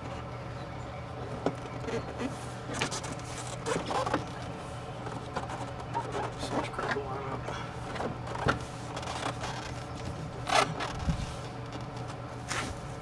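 Plastic interior door trim panel of a 1998 Ford Expedition being handled and fitted back onto the door: scattered scrapes, rustles and light clicks, with several sharper knocks, the loudest about ten seconds in, over a steady low hum.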